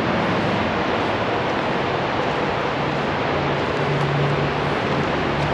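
Pocono Creek roaring in the gorge below, a steady rush of fast water running high after heavy rain. A faint low hum comes in about three seconds in.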